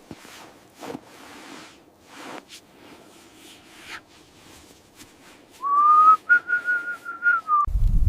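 Faint soft swishes, then about five and a half seconds in a high, steady whistle that glides up briefly as it starts, holds for about two seconds and cuts off suddenly, with a low rumble just after.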